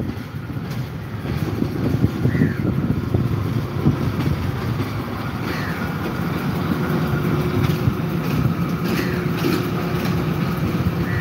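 Sri Lanka Railway S12 diesel multiple unit passing: a steady rumble of engine and wheels on the rails as the power car and then the coaches roll by. A bird calls faintly a few times over it.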